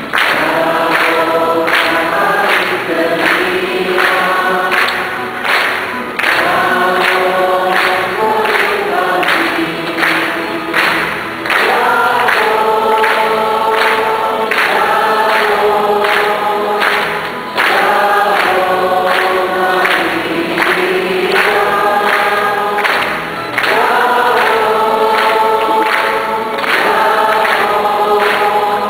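Many voices singing a hymn together in a large church, in phrases of long held chords with short breaks between them.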